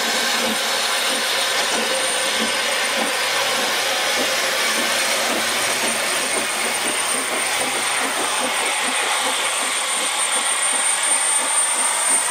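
Narrow-gauge steam locomotives Palmerston, Welsh Pony and Prince working past in a triple-headed train: a steady hiss of steam and exhaust with faint repeated chuffs, growing a little louder near the end as the locomotives come by.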